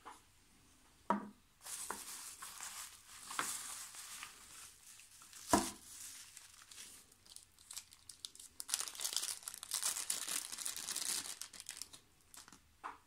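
Clear plastic packing crinkling and rustling as hands dig through it to unwrap a metal miniature, starting a second and a half in and stopping near the end. A sharp knock a little past halfway is the loudest single sound.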